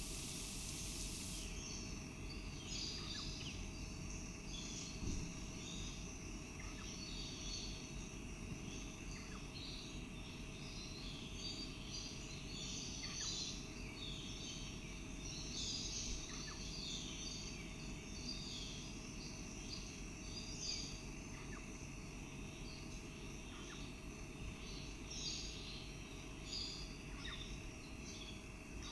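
Outdoor background of a steady, busy chorus of high-pitched chirps and trills, over a low rumble, with a few faint ticks scattered through.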